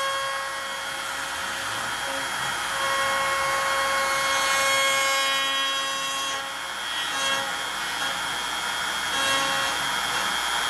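CNC router carving wood: a steady cutting rasp under the router's whine, with pitched tones that drop out and come back as the machine moves.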